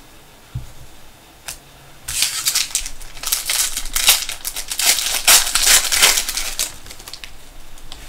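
Plastic trading-card pack wrapper crinkling and crackling for about five seconds as a pack is handled and torn open, starting about two seconds in, after a couple of light taps.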